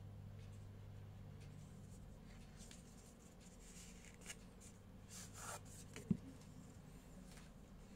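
Cardboard earphone box being slid out of its paper sleeve: soft, faint scraping and rubbing of card on card, over a steady low hum. A single sharp tap comes about six seconds in.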